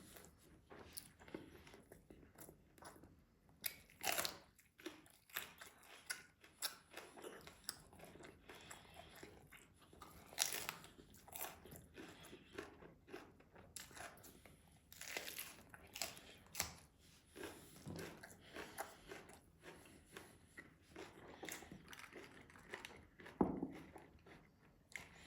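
Close-miked chewing of rice and meat: a stream of irregular mouth clicks and crackles, with a few louder bites.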